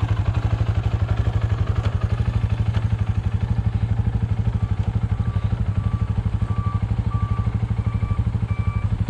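Polaris 525 ATV's single-cylinder four-stroke engine idling, an even, rapid pulse of about ten beats a second. A faint short high beep repeats in the second half.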